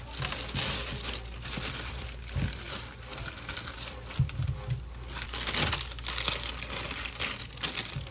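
Thin plastic produce bags crinkling as lemons and limes are pulled out of them by hand. There are a few soft knocks as the fruit drops into a wicker basket.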